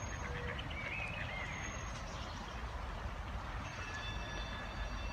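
Steady low outdoor rumble, like distant road traffic, with a few faint high chirps about a second in, likely small birds.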